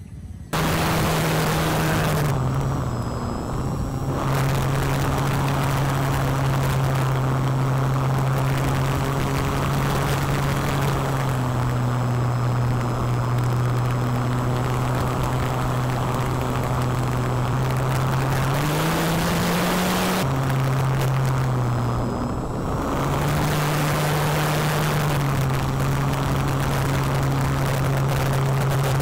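RC model plane's motor and propeller heard from an onboard camera in flight: a steady low drone whose pitch drops, rises and drops again with throttle, over rushing wind.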